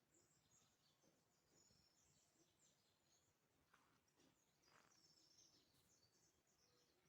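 Near silence, with faint high chirps of small birds repeating throughout.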